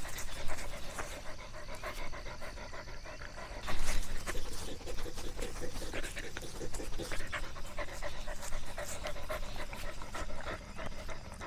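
A dog panting in quick, repeated breaths, with a louder burst about four seconds in.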